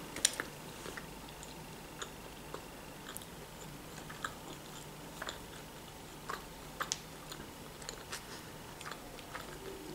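Faint closed-mouth chewing of a sausage, cheese and onion sandwich on white bread, with soft short mouth clicks every second or so.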